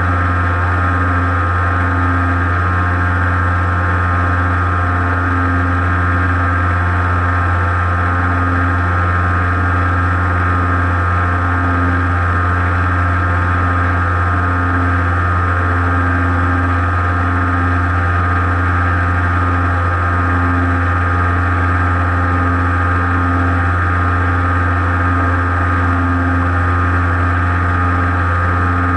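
Model airplane's motor and propeller running steadily in cruise, picked up close by the onboard camera: an unchanging drone with a slow beating wobble underneath.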